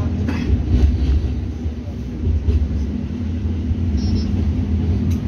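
Tram running, heard from inside the car: a steady low rumble with a motor hum. A few faint clicks, and a brief high tone about four seconds in.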